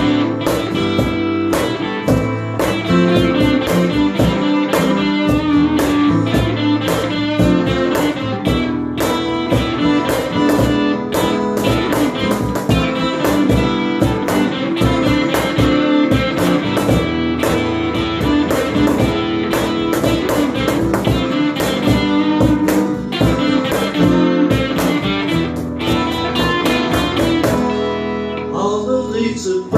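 Instrumental passage of a small live band: an electric guitar playing lead over a strummed acoustic guitar, with a cajon keeping a steady beat. The playing thins out briefly near the end.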